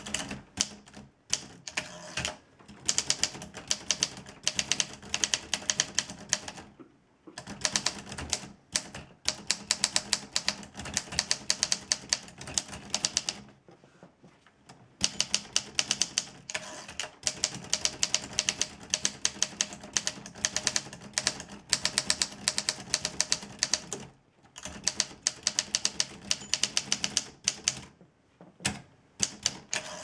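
1945 Olympia Progress portable manual typewriter being typed on fast: quick runs of type bars striking the platen, broken by a few short pauses.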